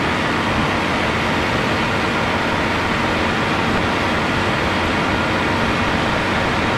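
Engine and propeller of a single-engine ultralight aircraft running steadily at takeoff power during its ground roll, heard from inside the cockpit.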